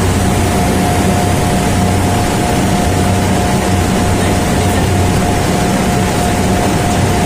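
Steady machinery drone of running chiller-plant equipment: a low hum under an even rush of noise, with a steady high tone coming in at the start.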